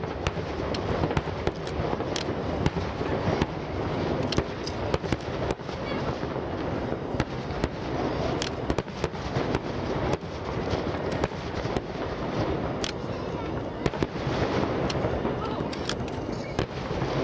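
Water starmine fireworks, shells fired rapidly and bursting as half-domes on a lake's surface. Heard from a distance, they make a continuous rolling rumble studded with many sharp cracks and booms.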